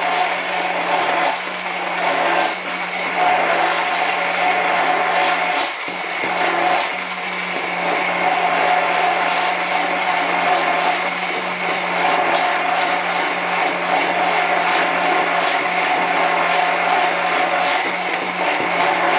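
Handheld immersion blender motor running steadily with a constant hum, its blade whirring in soy milk as oil is blended in to emulsify an eggless mayonnaise. The sound dips briefly about six seconds in as the blender is moved through the mixture.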